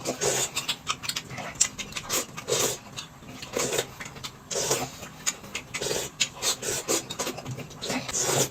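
A person eating noisily close to the microphone: repeated short chewing and slurping sounds, roughly one a second.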